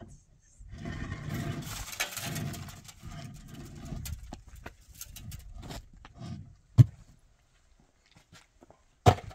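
Hollow concrete blocks being handled off a pickup truck's bed: a noisy rushing stretch in the first few seconds, scattered light knocks, then two sharp knocks of block on block later on, about two seconds apart.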